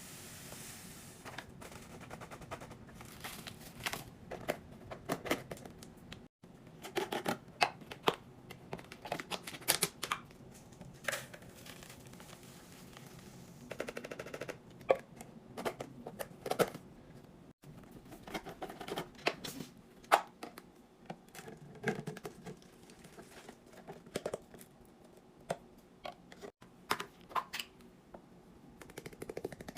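Food containers and packaging being handled and set down: irregular taps, clicks and clatters, with a few louder knocks.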